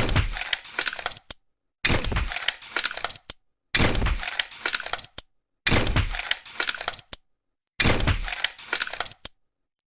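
Tranquilizer dart pistol sound effect played five times, about two seconds apart: each a sharp shot followed by a few quick mechanical clicks, with dead silence between repeats.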